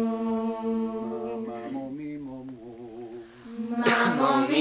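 Youth choir singing a cappella, holding a long note in harmony with a wavering line moving over it in the middle. A sharp percussive burst comes near the end as the singing swells again.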